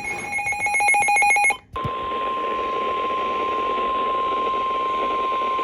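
NOAA Weather Radio alert opening: a short burst of rapid, buzzing digital data tones (the SAME header that encodes the alert), then after a brief break about a second and a half in, the steady single-pitch 1050 Hz warning alarm tone, over faint radio hiss.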